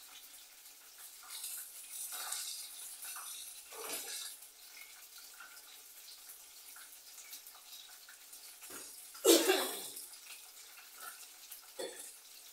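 Water running from a kitchen tap on and off, with one much louder burst about nine seconds in.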